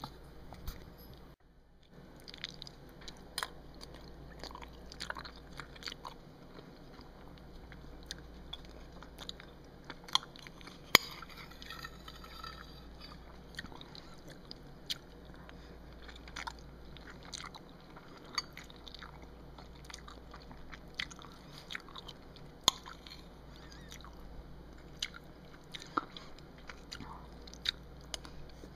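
Close-miked eating of macaroni and cheese: chewing and wet mouth sounds with many short, scattered clicks, the sharpest about eleven seconds in.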